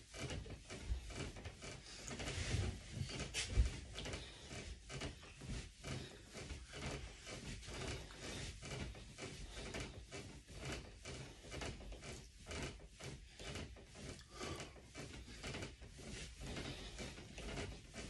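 A bed and its bedding creaking and rustling in a steady rhythm under repeated push-ups, with a sharp click about three and a half seconds in.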